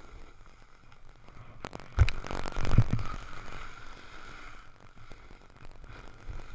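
Snowboard sliding and carving over packed snow, with wind on the microphone. About two seconds in comes a loud thump, then about a second of hard scraping from the board's edge biting into the snow.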